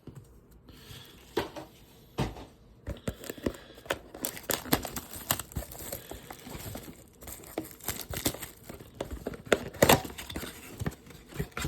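Trading-card blaster box packaging being torn open by hand: plastic wrapping crinkling and tearing in a long irregular run of crackles, busiest in the second half, with a louder snap of handling near the end.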